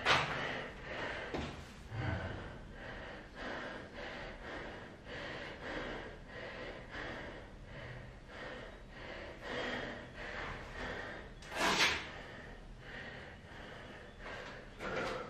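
A man's heavy breathing, breath after breath, as he recovers from a set of burpees, with one sharp loud breath about twelve seconds in.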